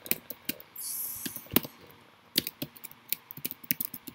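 Typing on a computer keyboard: irregular key clicks, some loud and sharp, as a short line of text is entered. A short high hiss sounds about a second in.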